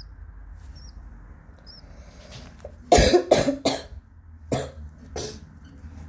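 A sick person coughing: three hard coughs in quick succession about three seconds in, then two more single coughs. A couple of faint, short budgerigar chirps come before the coughing.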